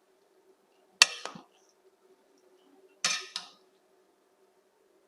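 Two sharp metallic clanks about two seconds apart, each with a short ringing tail: a metal cooking utensil knocking against a pot or dish.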